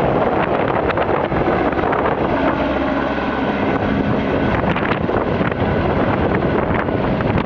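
Helicopter's rotor and engine as it climbs away overhead, with wind buffeting the microphone.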